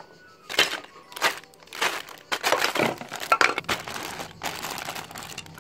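Clear plastic bags of LEGO Duplo pieces crinkling as they are handled and rummaged through, in a run of short rustles.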